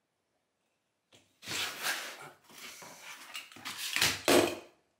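Cut pieces of luxury vinyl tile being handled and set down on a vinyl tile floor: scraping and clattering from about a second and a half in, with a louder knock near the end.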